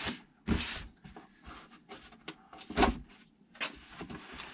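A cardboard shipping box being opened by hand: uneven scrapes, rustles and knocks of the cardboard and tape being cut and pulled, the loudest a little under three seconds in.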